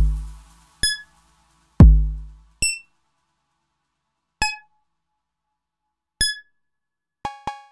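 Sparse electronic drum-machine music. Two deep kick-drum booms fall in pitch in the first two seconds, and short bright synth blips come about every second and three quarters. Near the end a quick run of short ringing notes begins.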